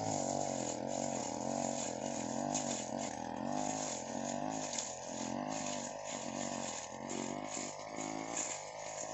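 Brush cutter's small petrol engine running at high speed while cutting weeds and grass, its pitch rising and dipping every second or so as the cutting head sweeps through the growth and takes the load.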